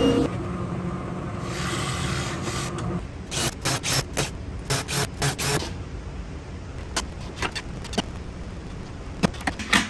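Cordless drill run in about eight short bursts, drilling into a plywood panel, followed by a few sharp clicks and knocks near the end.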